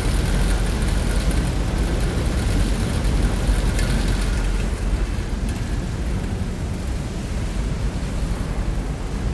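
Loose metal fittings rattling aboard a Washington State ferry under way, over the ferry's steady low rumble. The rattling is busiest in the first half and eases off after about five seconds.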